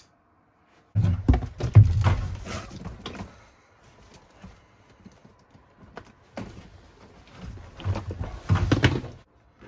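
Knocking, clattering and rustling as a black fabric suitcase is hauled out of a cluttered closet, bumping against boxes and picture frames. The noise comes in two bouts, the first starting about a second in and the second, louder one near the end.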